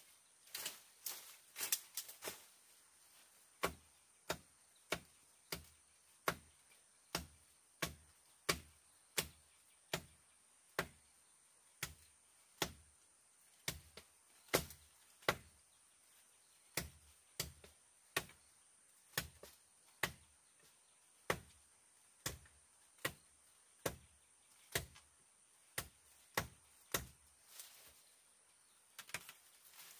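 Repeated chopping: a blade hacking into wood at a steady pace of about three strokes every two seconds, with a few short pauses, as a sapling is cut.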